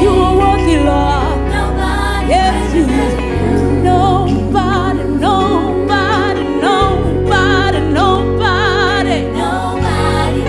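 Slow gospel worship music: a singer holds long notes with heavy vibrato over sustained bass and chords that change every few seconds.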